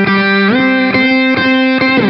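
Electric guitar playing a solo line through an octaver with delay: a long held note slides up about half a second in and slides back down near the end, with short attacks about twice a second.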